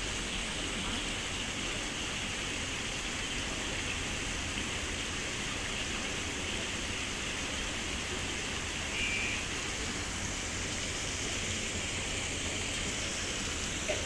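Small waterfall spilling over rocks into a pond, a steady rush of splashing water.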